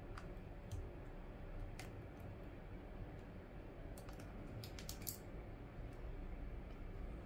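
Light, scattered clicks and taps of small plastic and metal parts as an iPhone 6's replacement display is connected and pressed closed onto its frame, with a quick cluster of clicks about four to five seconds in.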